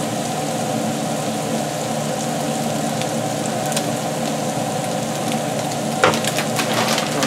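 Ground beef sizzling in a skillet, a steady frying hiss. About six seconds in there is a knock and a few clinks as the metal soup can is set down on the counter.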